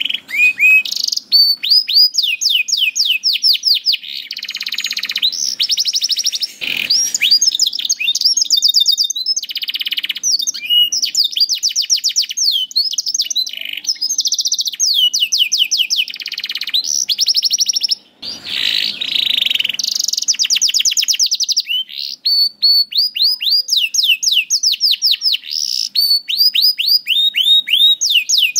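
Domestic canary singing a long, continuous song of fast trills and rapid repeated sweeping notes, with only brief pauses.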